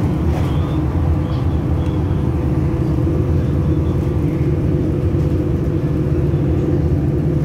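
City bus cruising at a steady speed, heard from inside the cabin: a steady low rumble of engine and tyre noise.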